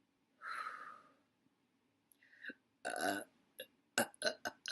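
A woman burps about three seconds in, after a breath near the start. A quick run of short bursts, about four a second, follows near the end.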